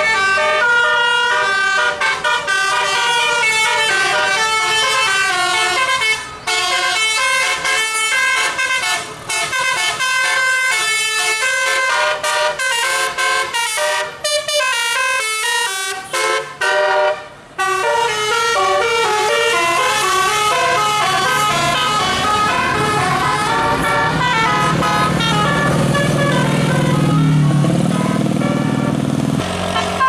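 Tour bus musical air horn (telolet horn) playing a fast tune of short stepped notes, often several at once, with a brief break a little past halfway. Near the end a bus engine rumble grows louder under the horn as the bus passes.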